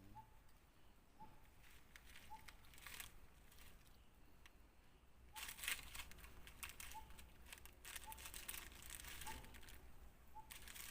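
Faint rustling and crinkling in irregular patches, denser in the second half, with a faint short high note repeating about once a second.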